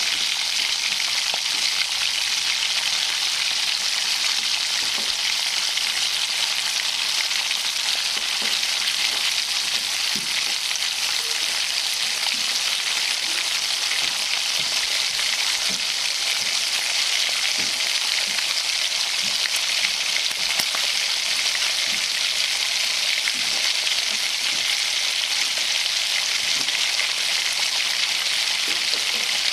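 Bacon frying and sizzling: a steady, even hiss with small scattered pops and crackles.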